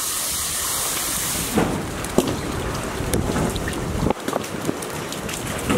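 Water splashing and sloshing as golden retriever puppies wade in a shallow paddling pool: a continuous splashing hiss for about the first second and a half, then scattered smaller splashes.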